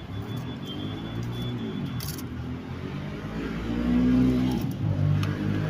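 A motor vehicle engine running, its pitch rising and falling, loudest about four seconds in.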